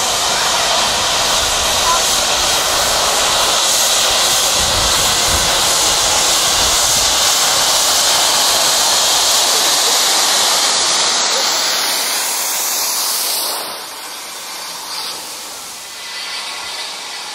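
Saddle-tank steam locomotive letting off steam with a loud, steady hiss, which eases off about thirteen seconds in and carries on more quietly.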